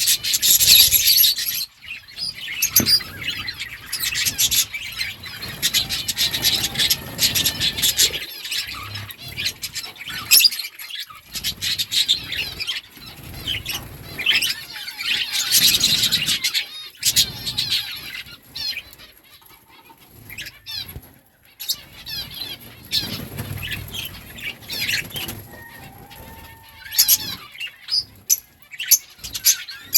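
Budgerigars chirping and twittering in a continuous, overlapping chatter, with louder swells of fluttering wing noise a few times.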